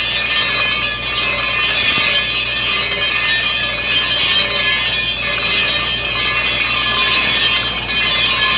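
Borewell drilling rig running while compressed air blows muddy water up out of the bore, the water struck at about 220 feet: a loud, steady rushing noise with a steady high mechanical whine.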